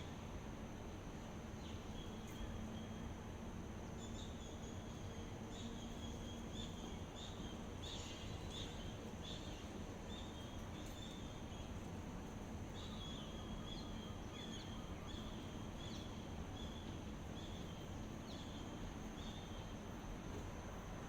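Outdoor dawn ambience: a steady, high-pitched insect drone, with short chirps repeated in runs, over a low, even rumble.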